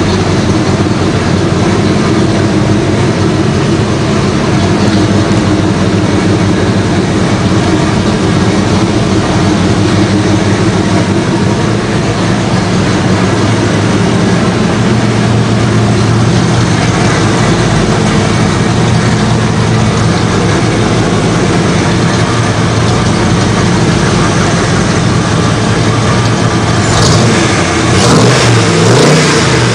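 Ford V8 exhaust of a Factory Five Racing roadster running steadily, then revved up and down a few times near the end.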